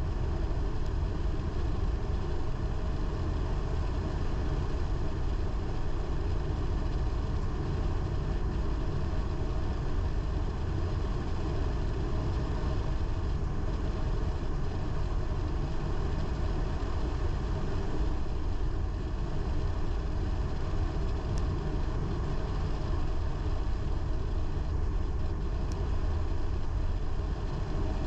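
Car driving at a steady speed: a constant low rumble of engine and tyre noise on the road, unchanging throughout.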